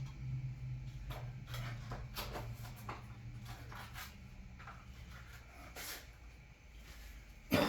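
Small hand tools being handled on a workbench: scattered light clicks and taps, with one louder knock near the end. A low steady hum fades away over the first few seconds.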